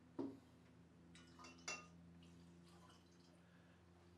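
Near silence with faint handling sounds: a soft knock and a few light clicks as a glass hydrometer is lifted out of its test cylinder and the pieces are handled, with a little liquid dripping.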